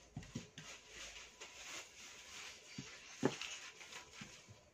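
Plastic wrapping rustling and light knocks as a glass blender jar and its packaging are handled on a glass counter, with one sharper knock a little past three seconds in.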